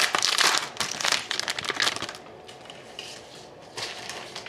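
Foil hockey-card pack wrapper crinkling as it is pulled open, stopping about two seconds in, followed by a few soft rustles as the cards are handled.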